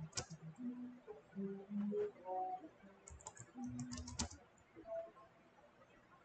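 Typing on a computer keyboard: a few separate keystrokes, then a quick run of key clicks about three to four seconds in.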